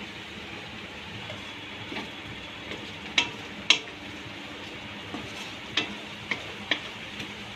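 Tomato-and-spice masala sizzling in a metal kadhai, with a little water just added, while a wooden spatula stirs it. A few sharp knocks of the spatula against the pan, one about three seconds in and three more near the end.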